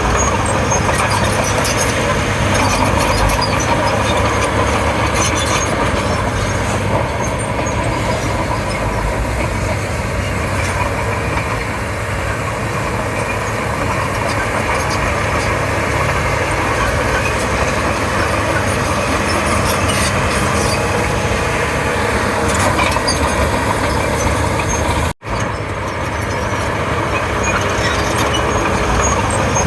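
Komatsu D31P bulldozer's diesel engine running steadily under load while it works. The sound cuts out for an instant about 25 seconds in.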